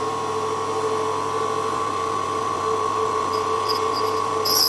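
Chronos PP-U3 D-bit tool-and-cutter grinder running with a steady motor whine, its wheel grinding the point of a hardened steel tap. Near the end come short high scratchy hisses of the wheel on the steel.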